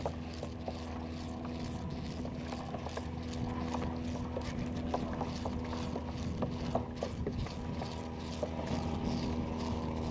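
Kayak under way, its drive giving a steady low mechanical hum, with many small irregular ticks over it.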